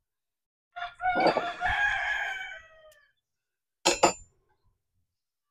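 A rooster crows once, a long call of about two seconds that trails off. About a second later come two short knocks close together.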